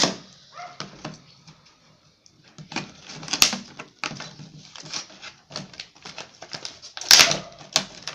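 Irregular clicking and clattering of hard plastic as a new Pyraminx puzzle is handled, with a sharp click at the very start and a louder clatter of clicks about seven seconds in.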